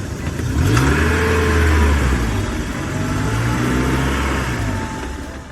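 Truck engine revving up sharply about a second in, running at speed, then winding down near the end.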